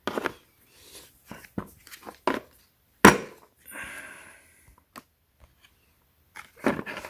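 Steel adapter discs of a brake caliper piston wind-back tool kit clicking and knocking as they are handled and set into the moulded plastic case, the loudest knock about three seconds in, followed by a brief scraping rustle.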